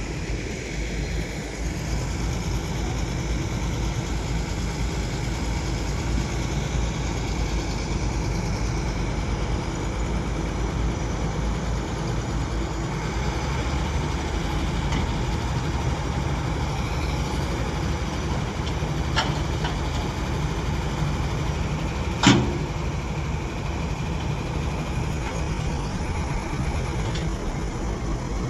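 Heavy construction machine's engine running steadily, with a single sharp metallic knock about three-quarters of the way through.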